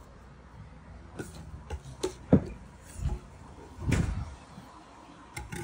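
Wooden rolling logs, cut fence posts, being handled and set down on paving: a handful of dull wooden knocks, the sharpest about two and a half seconds in, and a heavier thud about four seconds in.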